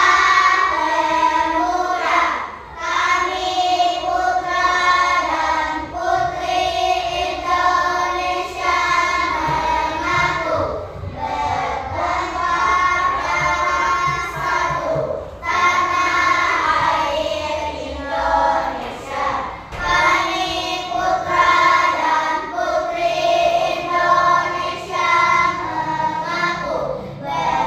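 Children singing together.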